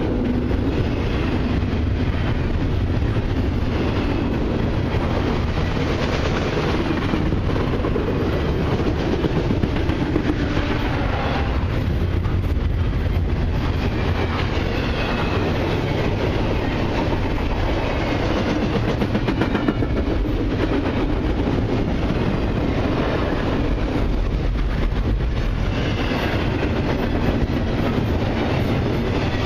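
Double-stack intermodal well cars of a CN freight train rolling past close by: steady steel-wheel-on-rail noise with repeated clicks of the wheels over the rail joints.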